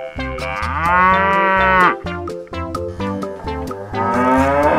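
A cow mooing twice, two long calls with a second or so between them, over background music.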